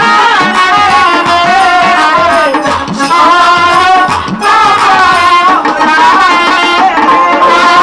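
Live Bangladeshi folk music from a jatra ensemble: a wavering melody on a wind instrument over steady hand-drum strokes, about three a second, each bending down in pitch.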